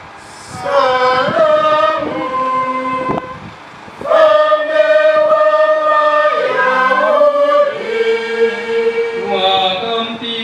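Voices chanting the Passion in Swahili: phrases of sung, held notes, with a short break just after the start and another about three seconds in.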